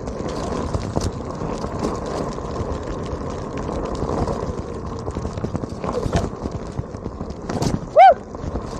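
Onewheel rolling over a rough, gravelly surface: a steady rumble of the tyre and rushing air, dotted with many small clicks of stones kicked up, and a faint steady whine. About eight seconds in, one short loud pitched chirp that rises and falls.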